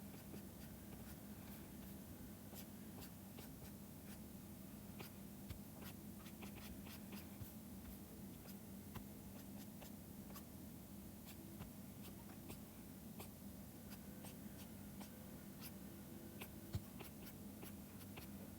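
Faint scratching and tapping of a stylus pen on a drawing tablet, with many small clicks scattered throughout, over a low steady hum.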